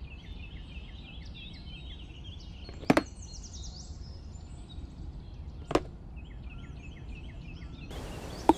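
Three sharp clicks about three seconds apart as small plastic parts and tubing of a miniature pump model are handled, over quick high bird-like chirping and a low steady rumble.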